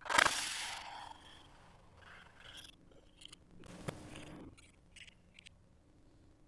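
A paperboard box being handled: its inner tray slides through the sleeve with a loud scrape at the start, then softer rustles and scrapes of card, with a sharp tap about four seconds in and a few small clicks after.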